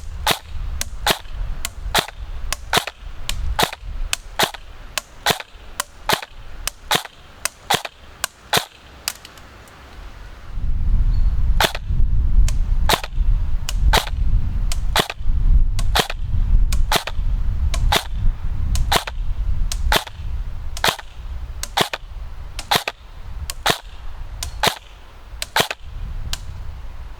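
Krytac Kriss Vector electric airsoft replica firing single shots, each a sharp clack of its gearbox cycling. The shots come quickly at first, two or three a second, then slow to about one a second, with a low rumble underneath from about ten seconds in.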